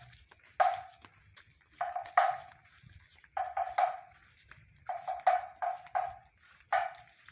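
A dog barking repeatedly in short clusters of one to several sharp barks.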